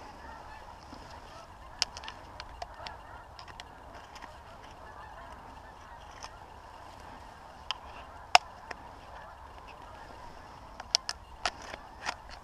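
Flock of geese calling high overhead, a continuous distant chatter of honks. Several sharp clicks are scattered through it, the loudest about eight seconds in and a quick cluster near the end.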